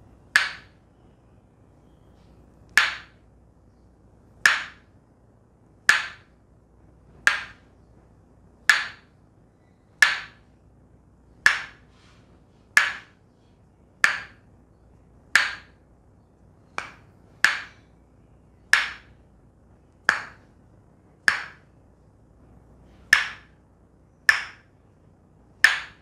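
Tok Sen wooden mallet striking a wooden wedge held against the neck and shoulder: sharp, hollow wooden knocks, about one every second and a half, each with a brief ringing tail.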